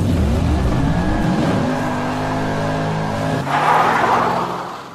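Sound effect of a car engine revving up and then holding its revs, followed about three and a half seconds in by tyres screeching in a burnout, which fades out near the end.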